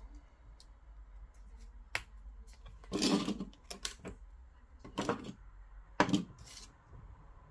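Scattered sharp clicks and taps with a few short rustling bursts, the loudest about three seconds in, then two more near five and six seconds: small objects being handled on a workbench.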